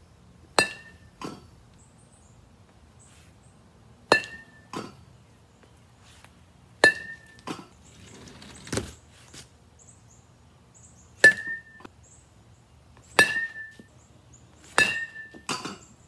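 A baseball bat hitting balls off a batting tee, six times at intervals of a few seconds: each hit is a sharp ringing ping, followed about half a second later by a softer knock.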